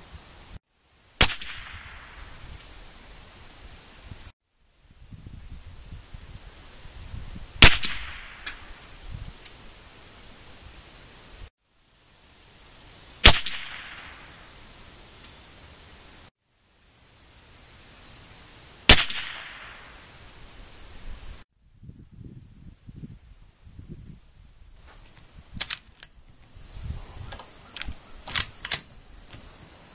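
Four single .22 LR rifle shots from a Winchester 94/22 lever-action, each a sharp crack with a short tail, several seconds apart, over a steady high insect buzz. Near the end come several lighter metallic clicks as the lever action is worked.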